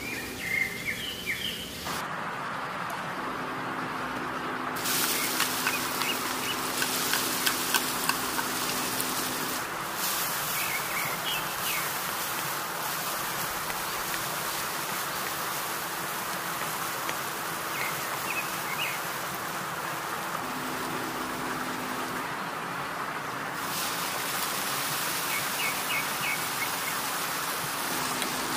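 Minced garlic sizzling in hot oil in a wok, a steady hiss that starts about two seconds in, with a few taps and scrapes of a wooden spatula stirring it.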